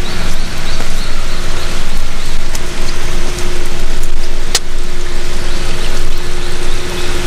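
Loud, steady rush of water through the gorge, with a single sharp click about four and a half seconds in.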